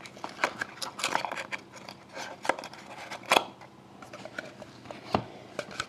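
A stack of thick 2011-12 Panini Dominion hockey cards slid out of its small black box and handled in the hand: scattered clicks and scrapes of card against card and box, with a sharper click about three and a half seconds in and a low thump near the end.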